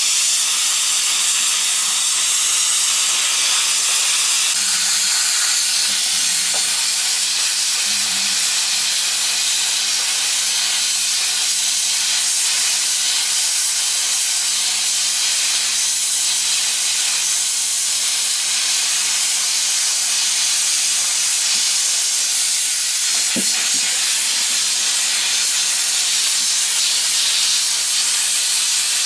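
GEP-2 hot-air plastic welding gun blowing a steady hiss of compressed air from its nozzle while it melts a polyethylene filler strip into a barrel seam. A faint low hum runs underneath.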